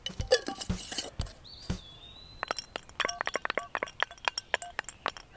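A single wooden stick rattling inside a closed jar as it is shaken: a run of irregular knocks and clinks, busiest in the second half.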